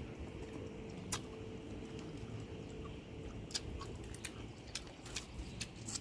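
Scattered faint clicks and smacks of eating by hand, with chewing and food being handled, over a low steady background rumble. A faint steady hum stops about four seconds in.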